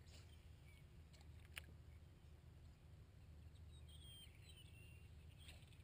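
Near silence: a faint low outdoor rumble, one light click about one and a half seconds in, and a few faint high bird chirps about four seconds in.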